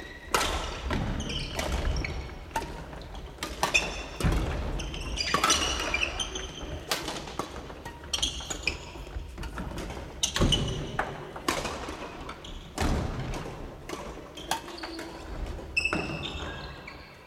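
Sports-shoe footsteps and lunge thuds on a wooden gym floor, with short high shoe squeaks, from several players doing badminton footwork drills. Irregular thumps throughout, several a second at the busiest moments.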